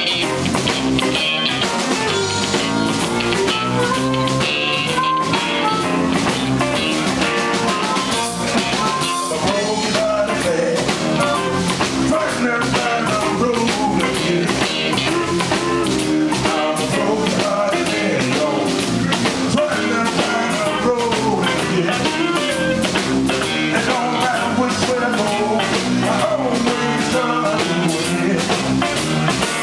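Live electric blues band playing a slow blues: amplified blues harmonica played into a hand-held microphone, electric bass, electric guitar and drum kit.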